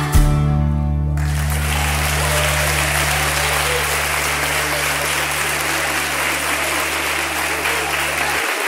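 Audience applause breaks out about a second in, after a last beat of the music, and continues as steady clapping. Beneath it a low final note of the accompaniment holds, then cuts off near the end.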